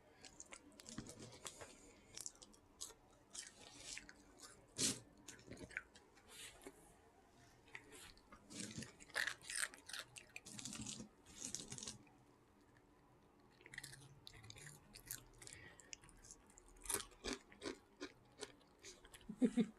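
Close-up chewing and crunching of crunchy food, in irregular bites with a short pause about twelve seconds in.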